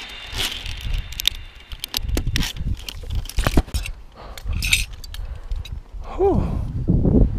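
Metal clinks and jangles of carabiners and a zip-line trolley on the steel cable, a few separate knocks over the first five seconds, with wind rumbling on the microphone. Near the end there is a short falling tone.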